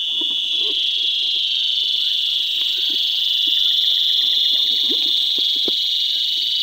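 Insects droning in one steady, high-pitched chorus, with faint scuffs and rustles underneath.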